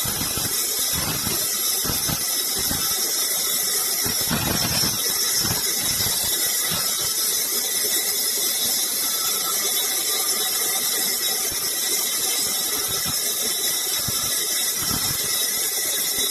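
Power saw running and cutting wood: a steady high-pitched hiss with occasional low knocks as the wood is fed.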